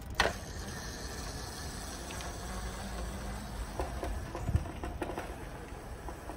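Razor electric scooter riding off across rough, cracked asphalt: a faint motor hum over a steady low rumble, with a sharp click just after the start and a few light knocks from the scooter rolling over the broken pavement.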